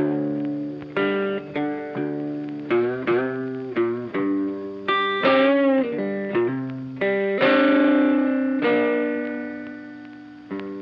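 Background music: a plucked guitar picking out a melody note by note, with a longer ringing chord about three-quarters of the way through, fading away near the end.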